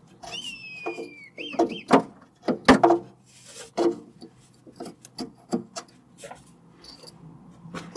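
Hand tools and parts clicking and knocking on the engine while coil packs are removed and fitted, in irregular sharp taps. In the first two seconds there is also a high whistling tone that slides slowly downward, followed by two short swoops.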